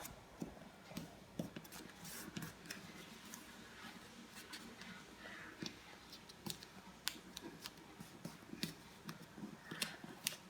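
Craft paper being folded and pressed by hand: scattered crisp crackles and soft taps at an irregular pace.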